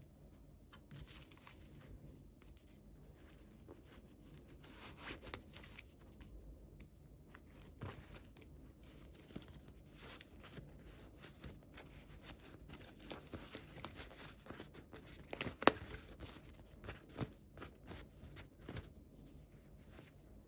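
Toy packaging being torn open and handled: irregular rustling, crinkling and small clicks, with one sharper click about fifteen seconds in.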